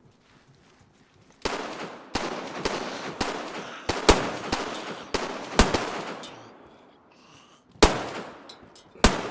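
Glock pistol firing: a string of shots starting about a second and a half in, roughly one every half second, then two more spaced shots near the end. Each shot trails off in a long echo.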